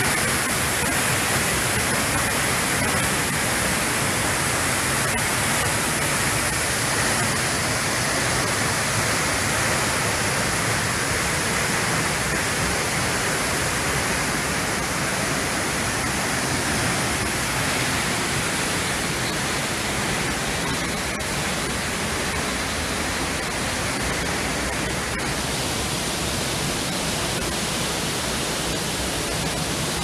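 A tall waterfall plunging into its pool: a steady, unbroken rush of falling water, growing slightly fainter over the last few seconds.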